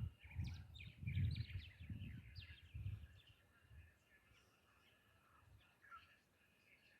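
Small birds chirping and calling in quick short notes, busiest in the first few seconds, over irregular low rumbling that dies away about four seconds in.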